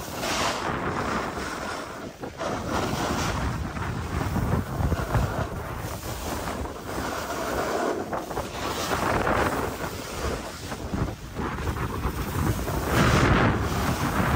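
Wind rushing over the microphone together with skis scraping and hissing over packed snow during a downhill run. The rush swells and eases with speed and turns, with the loudest surge near the end.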